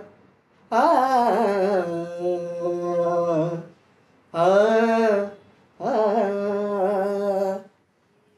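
Man singing unaccompanied, opening a Marathi ghazal with slow, held phrases without words, their pitch turning and wavering in ornaments. Three phrases, the first the longest, with short silent pauses between them.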